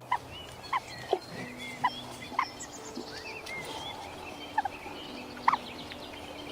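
Domestic fowl calling in short, sharp notes, about eight scattered over a few seconds, over a steady background hiss.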